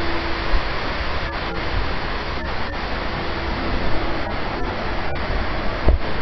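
Steady rushing cabin noise inside an airliner, picked up by a body camera's microphone. It has a low rumble underneath and a few brief dropouts.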